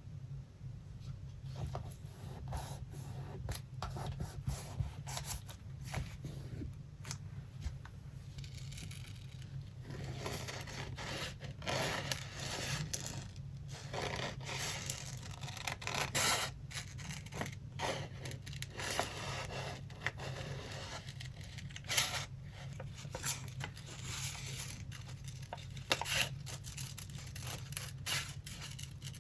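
Paper being worked by hand for a collage: scissor snips, tearing, scraping and rubbing of paper, with short clicks and rustling that is busiest in the middle. A steady low hum runs underneath.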